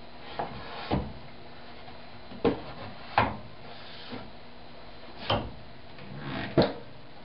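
A handful of separate knocks and clunks, about five, a second or more apart, of wooden stock and saw fittings being handled and set down.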